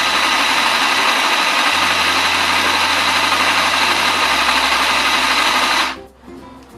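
Mini electric sewing machine's small motor running steadily at speed while winding thread onto a bobbin, then stopping suddenly near the end.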